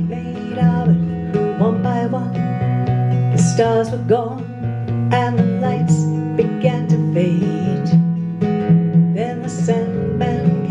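A folk song played live on acoustic guitar with electric bass guitar underneath, and a woman's voice singing over them.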